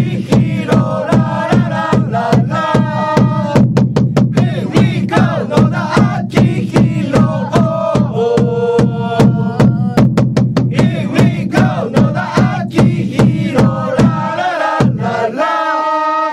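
Japanese player cheering chant: voices chanting the player's name with 'Hey we go!' and 'la la la' over a steady drumbeat. The drums stop near the end and the chant closes on one held note.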